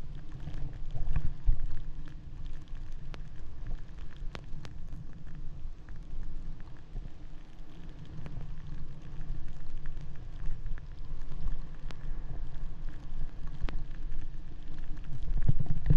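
Snowboard sliding and scraping over packed snow on a downhill run, with wind buffeting the microphone as a steady, uneven low rumble.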